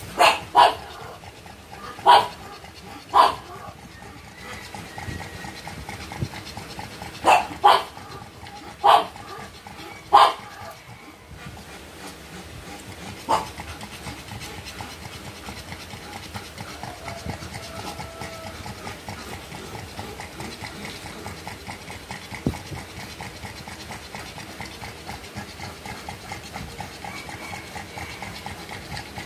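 A pug panting steadily, with about nine short, loud, sharp sounds over the first thirteen seconds.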